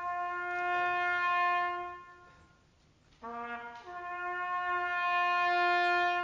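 A solo brass instrument playing a slow call of two matching phrases: in each, a short low note rises to a long held note a fifth higher that fades away, the second phrase coming after a pause of about a second.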